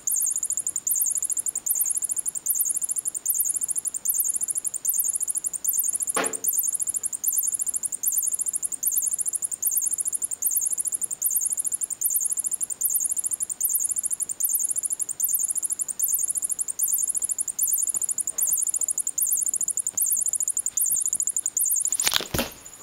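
Electronic squeaky-mouse cat toy chirping over and over in a rapid, high-pitched pattern without pause, stuck on because its circuit shorted after it was dropped in a water bowl.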